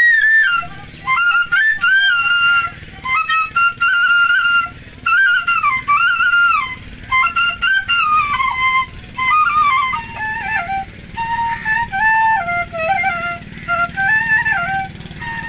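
Solo bamboo transverse flute (bashi) playing a melody in short phrases, with brief pauses for breath between them. From about ten seconds in, the tune moves down into a lower register.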